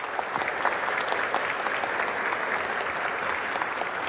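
A crowd applauding: many hands clapping together at once, steady throughout.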